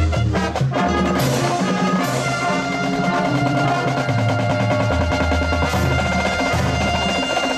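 High school marching band playing: brass over drums, with sharp hits in the first couple of seconds, then a long held chord over moving low notes.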